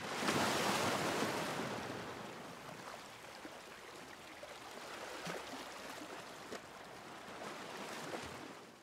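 Rushing, splashing water sound effect, swelling up within the first second, then running on more softly and fading out at the very end.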